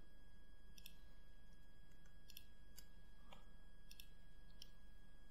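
Faint, short computer mouse clicks, about six of them at irregular intervals, made while selecting and deleting vertices in a 3D modelling program. A faint steady electrical hum lies underneath.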